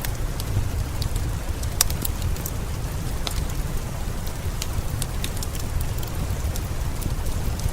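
Steady rain with a low rumble, mixed with the irregular sharp pops and crackles of a wood fire burning in a fireplace.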